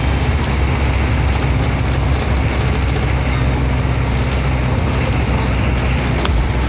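Steady engine drone and road noise heard from inside a moving vehicle's cab, with most of the energy in a low rumble.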